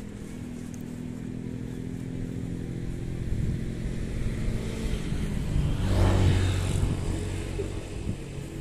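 Electric motor and propeller of a styrofoam RC SU-27 model jet running with a steady hum, swelling up to its loudest about six seconds in, then easing off.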